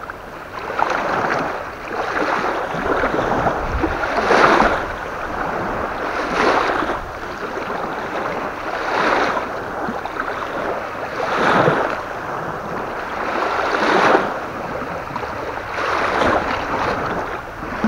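Waves washing onto the shore in a strong wind, a swelling splash every two to three seconds over a steady rush of water and wind.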